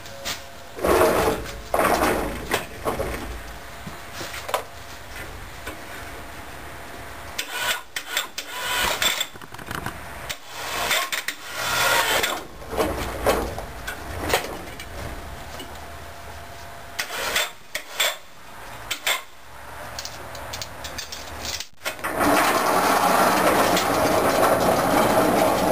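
A heavy log being handled on a sawmill bed: repeated knocks and scrapes of wood against the steel bed rails. Near the end a steadier, louder machine noise starts.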